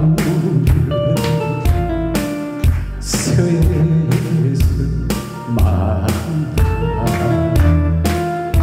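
Korean trot song performed live: a man singing into a microphone over a backing track with a steady drum beat and bass.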